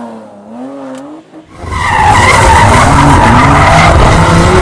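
A car engine revving up and down, then from about a second and a half in, loud tyre squeal as the car's tyres spin and slide, with the engine running hard underneath.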